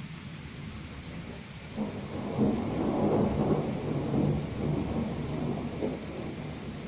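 Rolling thunder from a passing thunderstorm: a low rumble swells up about two seconds in, stays loud for a couple of seconds, then slowly dies away.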